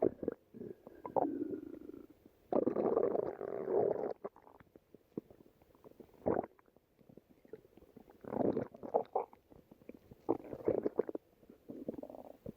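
Stomach growling and gurgling in several irregular bursts. The first carries a thin high squeak, and the longest lasts about a second and a half.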